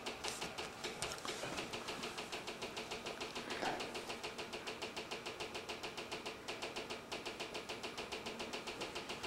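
Rapid, even ticking, about six soft ticks a second.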